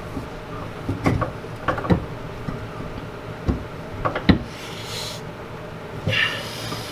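Scattered metal knocks and clanks from hand tools and parts under a car, with two short hissing, rasping bursts near the end.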